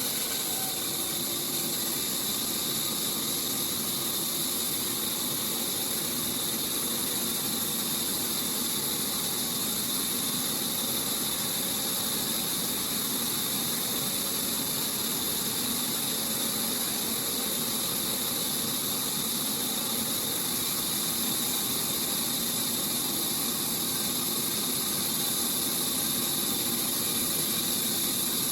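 Industrial sawmill saw running steadily: a constant, even hiss over a faint mechanical hum that does not change throughout.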